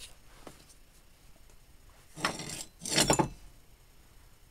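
Two short clinking, rustling handling sounds, about two and three seconds in.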